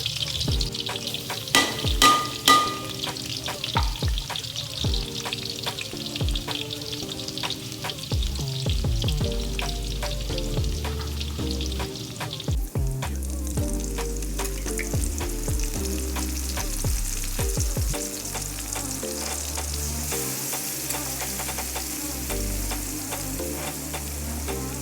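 Food sizzling in a hot pan while being stir-fried, with repeated clicks and scrapes of the spatula against the pan. The sizzle changes about halfway through. Soft background music plays underneath.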